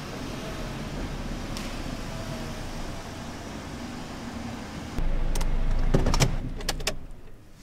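A small car's engine running steadily as the car moves slowly into a parking space. About five seconds in it is heard louder from inside the cabin, with several sharp clicks, and the engine stops shortly before the end.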